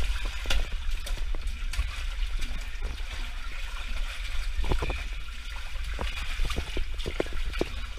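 Water rushing and splashing as riders slide down an enclosed tube water slide, with many short knocks and bumps against the slide walls over a steady low rumble.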